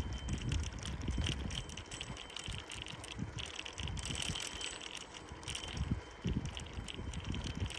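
Bicycle ridden over a cracked concrete path, its parts rattling and clicking irregularly over a low, uneven rumble.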